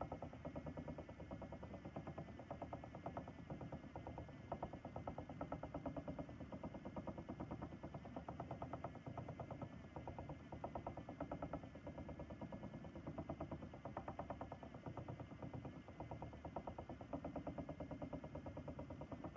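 Ashford e-Spinner electric spinning wheel running steadily, its motor and spinning flyer making a fast, even ticking rattle with a faint steady whine over it.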